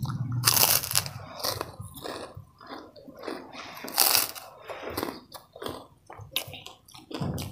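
Crisp kerupuk crackers being bitten and chewed close to the mouth: a run of crunches, the loudest about half a second in and again about four seconds in.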